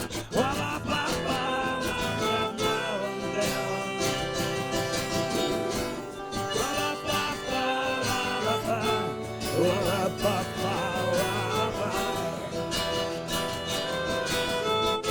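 A live band plays an instrumental passage: plucked guitar, a wavering melody line and steady percussion strokes.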